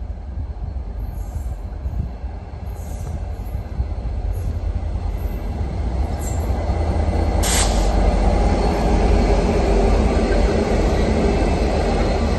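Coupled diesel-electric locomotives running light engine, approaching and passing: a low engine rumble grows steadily louder. About seven seconds in there is a brief high squeal of wheels on the rails.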